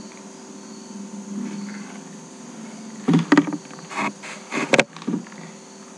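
Steady low room hum in a pause between speech, with a handful of short sharp noises between about three and five seconds in.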